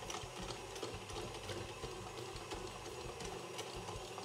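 Stand mixer running at speed 5–6, its dough hook kneading brioche dough with soft butter just added: a steady motor hum with scattered light ticks.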